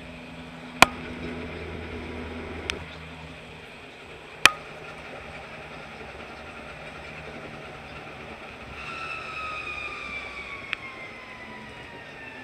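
Tram running along its tracks, heard from on board: a steady rumble broken by a few sharp clicks, two of them loud. About nine seconds in, a whine comes up and falls slowly in pitch, typical of an electric tram's motors as it slows.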